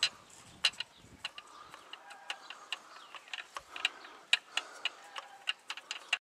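Socket ratchet clicking as the coil pack's 13 mm bolts are worked loose: a string of sharp, irregular clicks, a few a second.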